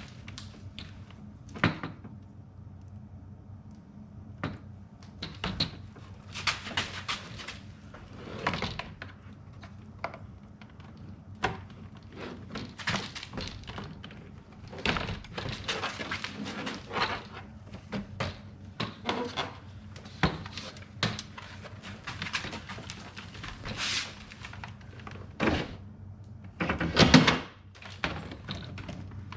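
Scattered knocks, clicks and clunks from hands working inside a Jeep Grand Cherokee ZJ's front door with the trim panel off, handling the window glass, its clips and regulator, with a longer, louder rattle near the end.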